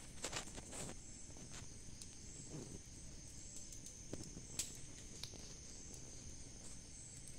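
A small pile of dry leaves burning, giving a few faint, scattered crackles and pops, the sharpest about four and a half seconds in. Crickets chirr steadily underneath.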